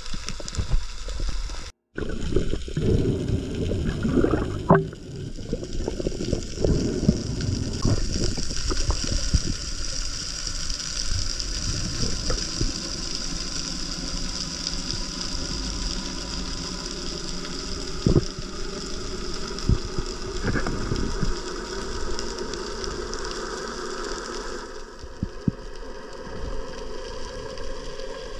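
Underwater sound picked up through a camera housing: water rushing and gurgling around the diver as he swims, with scattered clicks and knocks and a steady high hiss. It cuts out briefly about two seconds in.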